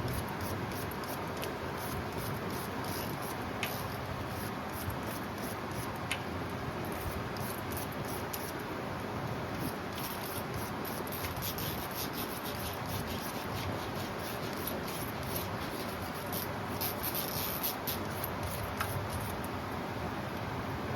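Hand tools working on engine bolts: light, irregular metal clicks and scraping over a steady shop background hiss.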